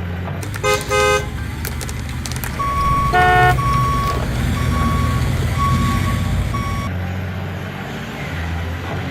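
Heavy truck engine rumbling at low revs while its horn gives two short toots and then a third. A steady electronic beep repeats about once a second through the middle.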